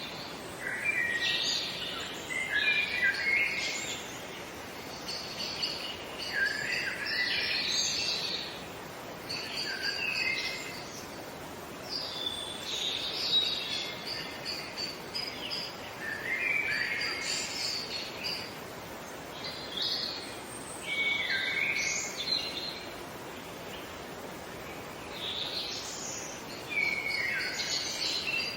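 Songbird song: short, busy warbled phrases of chirps and trills, repeating every few seconds, over a steady background hiss.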